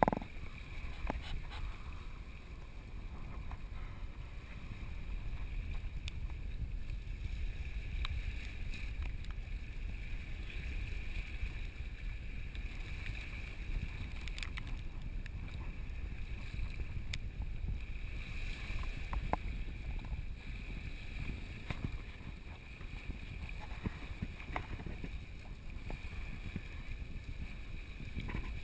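Wind rumbling on the microphone, steady and low, with a faint hiss above it and a few light ticks scattered through.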